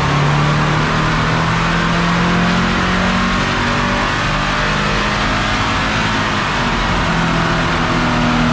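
Subaru FB25 2.5-litre flat-four running hard on a chassis dyno through a CVT, its note holding a nearly steady pitch rather than climbing. Under it runs a loud, even rush of air and roller noise.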